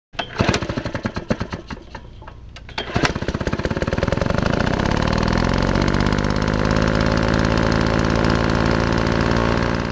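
An engine-like machine sound with a rapid pulsing beat: uneven and stop-start for about the first three seconds, then running steadily and densely until it cuts off suddenly at the end.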